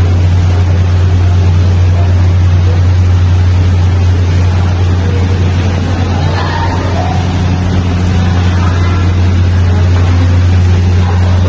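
Loud, steady low machine hum, one deep unchanging drone with a fainter overtone above it.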